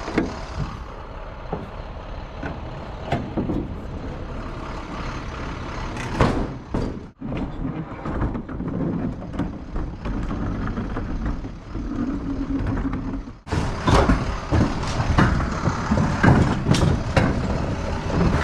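An engine idling steadily, with clunks and knocks as a cargo trailer's rear ramp door is unlatched, and a run of clattering thumps near the end as heavy rubber mats are handled and dropped on pavement.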